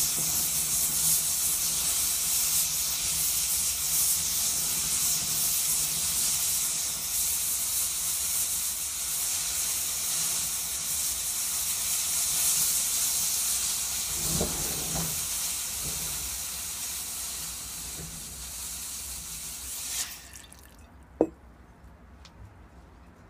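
Homemade potassium nitrate smoke mixture burning with a loud, steady high hiss as it pours out white smoke. The hiss cuts off suddenly near the end when the mixture burns out, and a single short, sharp high sound follows about a second later.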